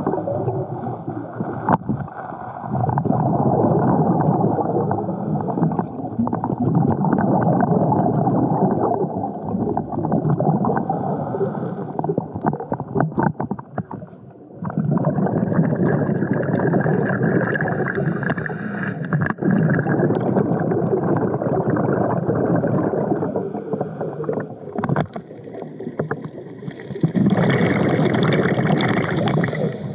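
Muffled underwater rushing and bubbling of water and air during a dive, with a few short lulls.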